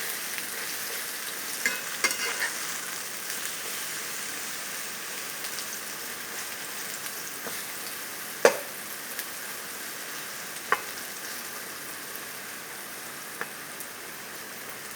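Chopped coriander leaves sizzling as they fry in oil in a pan, a steady hiss, while they are stirred. A few sharp knocks of the stirring utensil against the pan, the loudest about eight and a half seconds in.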